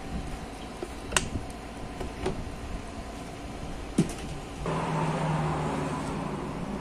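A couple of sharp clicks or knocks, then a motor suddenly starts about two-thirds of the way through and runs with a steady hum and hiss.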